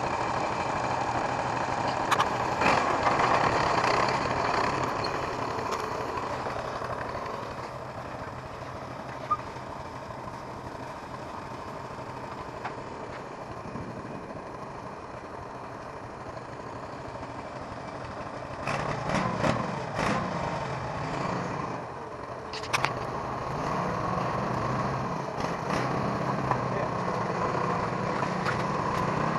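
Massey 20 tractor engine running steadily to drive a homemade log winch. It eases off for a stretch in the middle and picks up again, with a few knocks and rattles early on and again about two-thirds of the way through.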